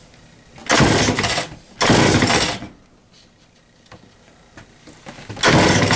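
Remington SL-11 A two-stroke chainsaw being pull-started: two loud cranking bursts about a second apart, then a third near the end, the engine not catching and running on. Its spark plug is fouled with oil.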